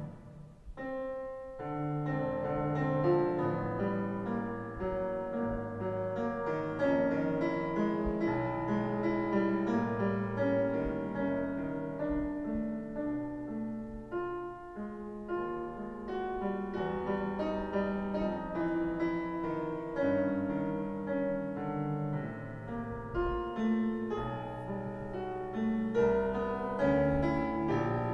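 Recorded piano music with many held notes and a bass line, played back over a sound system with two subwoofers.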